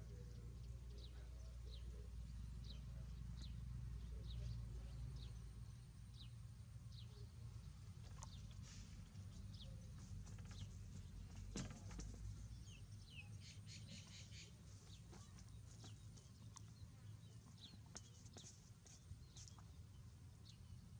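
Faint, scattered short high-pitched animal chirps over a low background rumble that eases off about six seconds in.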